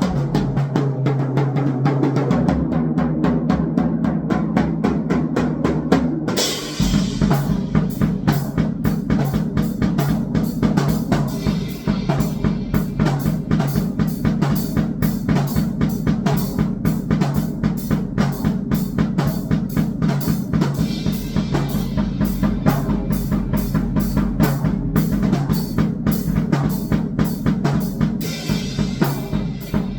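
Fast, dense drumming over electronic noise music with steady low droning tones; the sound grows fuller about six seconds in.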